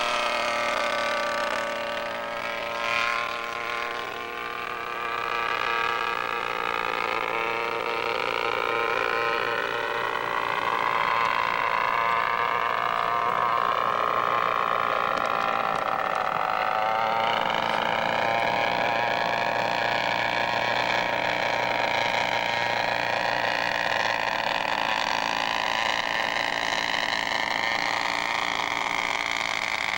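Small engine of a radio-controlled model aircraft in flight, running steadily with a high pitch that rises and falls as it throttles and passes.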